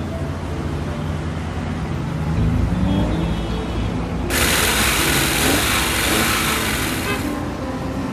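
Background music with low sustained notes, and a loud hiss that starts abruptly about four seconds in and cuts off about three seconds later.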